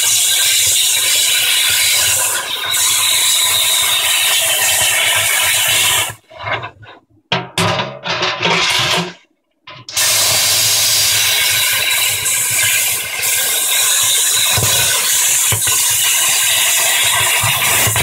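Plasma cutter cutting into a washing machine's metal drum: a loud, steady hiss. It stops about six seconds in and starts again about four seconds later.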